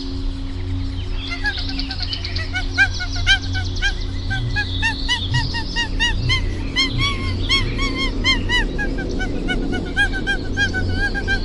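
A flock of birds calling: many short, arched calls, several a second and overlapping, starting about a second in.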